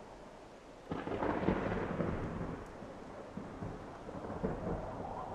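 Storm sounds: a clap of thunder about a second in that rumbles on and slowly fades, over a steady hiss of rain.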